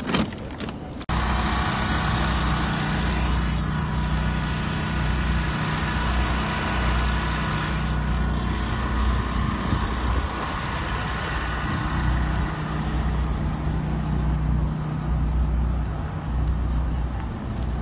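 A moving road vehicle's engine and road noise: a steady drone with a low throb that swells and fades every second or two, starting suddenly about a second in.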